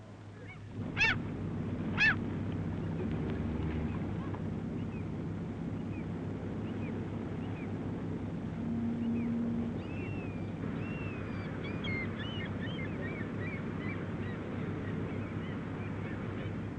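Two loud, short bird calls about a second apart, then many fainter chirping bird calls over a steady low background rumble.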